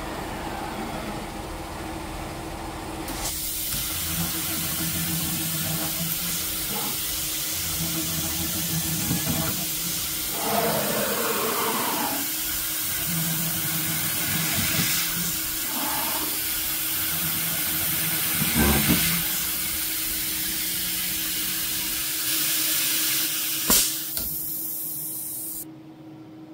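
Home-built PrintNC Pro CNC router at work: the spindle runs with a steady high tone while a 4.2 mm drill peck-drills holes in a 6061 aluminium plate. A coolant mist nozzle hisses steadily from about three seconds in, and cuts off a second before the end. Short low hums come and go as the machine steps between pecks and holes.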